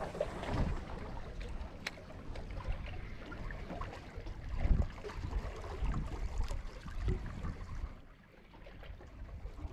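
Wind buffeting the microphone in uneven gusts over the wash of sea water at the shore, with a sharp click about two seconds in.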